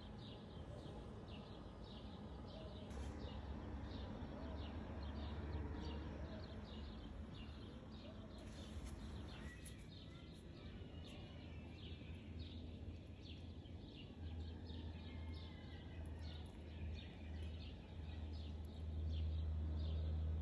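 Small birds chirping over and over, a few short chirps a second, over a low steady hum that grows louder near the end.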